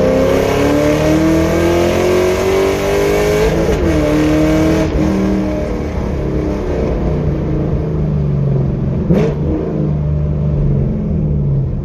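Camaro SS V8 with aftermarket headers pulling hard at wide-open throttle, its note rising steadily for about four seconds. A brief dip and renewed rise follows near four seconds in, then the revs ease off and fall slowly as the car lifts off the throttle. A single sharp crack comes about nine seconds in.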